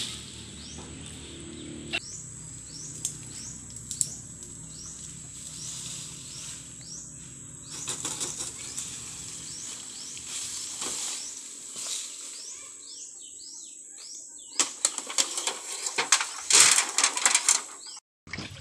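Dry coconut palm fronds rustling and crackling as they are dragged and thrown aside, with scattered cracks and a dense run of loud crackling near the end. Over a steady high whine, short high chirps repeat in the background.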